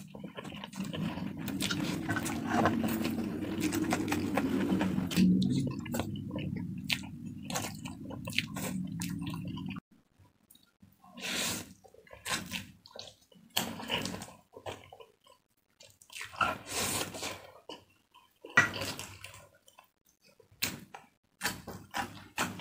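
A person eating instant fried noodles up close, slurping in strands and chewing with wet mouth sounds. A steady low noise runs through roughly the first ten seconds and cuts off suddenly; after that come separate short bursts of chewing and small clicks.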